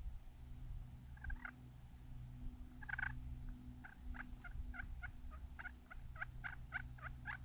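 Hen turkey yelping. Two single yelps are followed from about four seconds in by a quick, even run of yelps, about three a second, growing louder toward the end.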